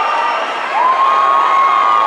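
Rock concert audience cheering and screaming. Just under a second in, one high voice rises into a long held note and breaks off near the end.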